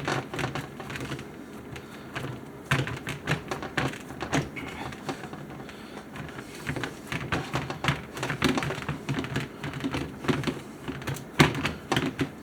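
Irregular taps and soft clicks of fingers pressing and spreading oiled dough out across a pan.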